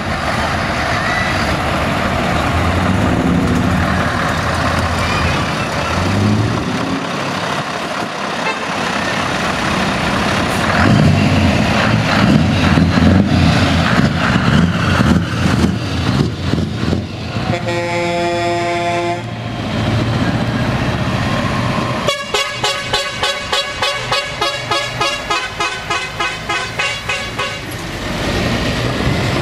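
Heavy trucks' diesel engines running as they drive past. About two-thirds of the way through, a truck horn sounds one long steady note. A couple of seconds later comes a rapid run of short horn blasts, about five a second, lasting around six seconds.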